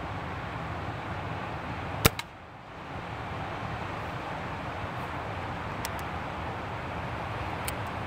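A customised Webley Tempest .22 spring-piston air pistol fires once, a single sharp crack about two seconds in, over a steady rush of background noise. A few light clicks follow near the end as the pistol is handled for cocking.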